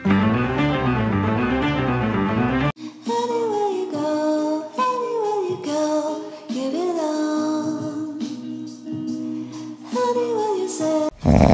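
Background music: a plucked-string instrumental, then after a cut about two and a half seconds in, a sung melody with sliding notes. A loud noisy burst starts just before the end.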